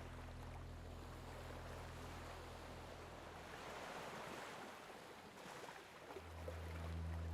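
Sea waves washing in a faint, steady hiss over a low steady hum. The hum fades away around halfway and comes back louder about a second before the end.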